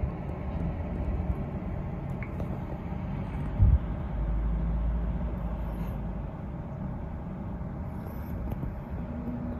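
Road traffic outside: a steady low rumble of passing vehicles. There is a single thump a little under four seconds in, then a heavier low rumble over the next couple of seconds.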